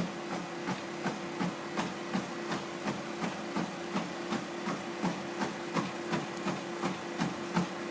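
Motorised treadmill running at high speed, its motor humming at one steady pitch under a quick, regular thudding of a runner's feet striking the belt in a sprint.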